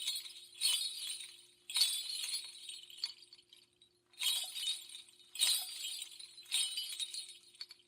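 A series of bright, glassy crashes with ringing tails, six of them about a second apart with one longer pause, over a faint steady hum.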